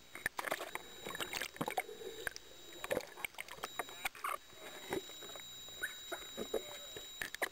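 Sea water splashing and lapping in small, irregular splashes and knocks, as snorkelers kick with fins at the surface.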